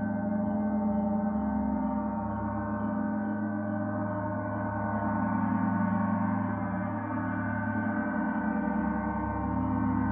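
Gong played continuously, its many overlapping tones ringing together in a dense, steady drone that swells and eases gently.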